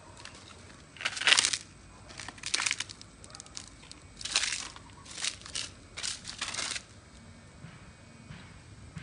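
Leaves crunching and rustling in about six short bursts, the loudest about a second in; the bursts stop near the end.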